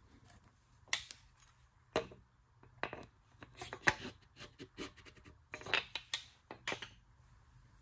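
Irregular metal clicks and scraping as a piston ring is set into the cylinder bore of an LS V8 block and squared up by pushing an upturned piston down onto it, then lifting the piston back out.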